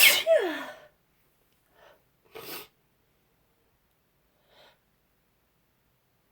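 A woman's sneeze: a sharp burst ending in a voiced 'choo' that falls in pitch. Short sniffs follow about two and two and a half seconds in, and a fainter one near five seconds.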